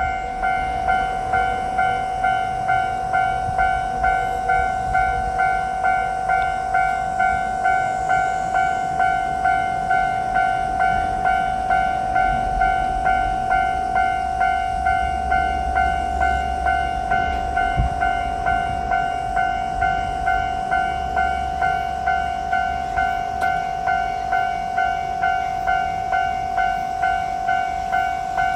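Japanese level-crossing warning bell ringing its steady 'kan-kan' tone, about one and a half strikes a second, over a low rumble.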